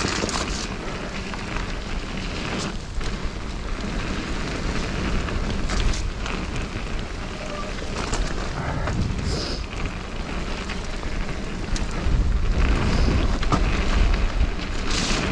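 Mountain bike riding fast down a wet dirt-and-gravel trail: a steady rush of wind on the microphone and tyres rolling over gravel, with scattered knocks and rattles from the bike. It gets louder in the last few seconds.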